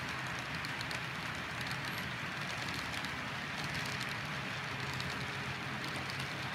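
Model freight train of tank cars and covered hoppers rolling past at speed: a steady rattle of small metal wheels on the track, with many light clicks.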